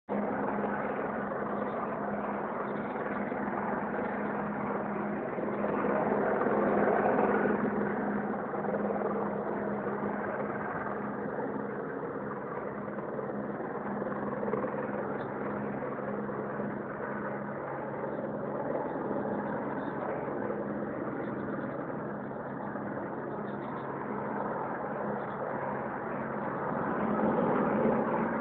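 Helicopter hovering overhead: a steady rotor and engine drone with a low hum under it, swelling louder for a moment about seven seconds in and again near the end.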